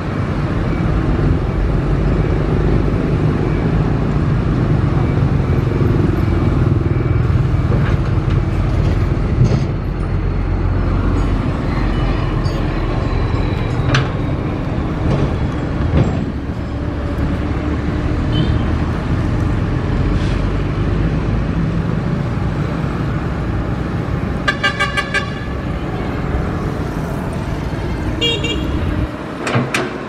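Diesel engines of a dump truck and a Komatsu PC200 excavator running steadily, with a few sharp knocks. A vehicle horn toots in a quick series of short blasts about three-quarters of the way in, and briefly again near the end.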